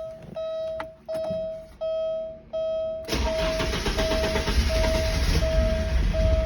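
Porsche 944 S2's 3.0-litre four-cylinder engine starting: it catches suddenly about three seconds in and keeps running unevenly, over a repeating warning chime that beeps about one and a half times a second. This is the car's intermittent hard start, with the engine running as if on one cylinder.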